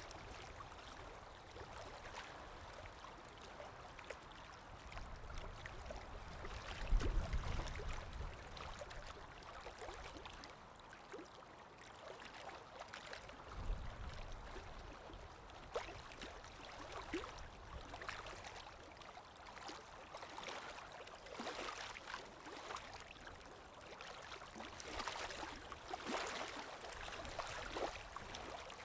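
Water sound effect of a flowing stream, a steady wash with many irregular small splashes. There is a low thump about seven seconds in, the loudest moment, and a softer one around fourteen seconds.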